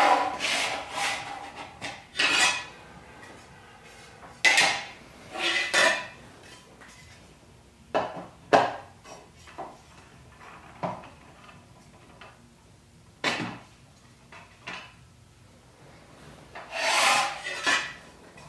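CNC-cut diorama panels and tubing handled on a wooden tabletop: scattered knocks, clicks and scrapes as parts are picked up and set down, with a longer sliding rub near the end.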